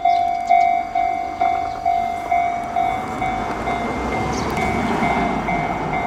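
Level-crossing alarm bell ringing in a gentle tone, about two strikes a second. From about three seconds in, the rumble of an approaching Kintetsu train rises and covers the bell.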